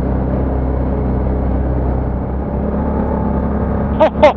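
ATV engine running steadily at trail speed, a constant low drone with a hiss of trail noise. A loud voice breaks in near the end.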